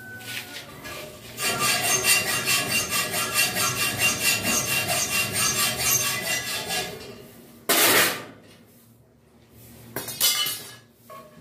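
Hacksaw cutting through a metal rod in steady back-and-forth strokes for about five seconds, then stopping; a short, loud burst of noise follows about eight seconds in, and a smaller one near the end.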